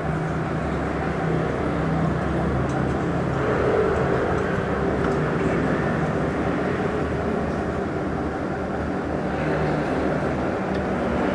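Steady engine drone, swelling a few seconds in and again near the end, with a few faint small clicks.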